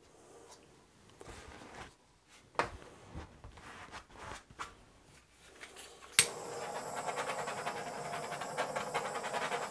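Small handheld butane torch clicking alight about six seconds in, then burning with a steady hiss over freshly poured acrylic paint. Before that, quiet rubbing and a few light knocks as the paint cup is handled and set down.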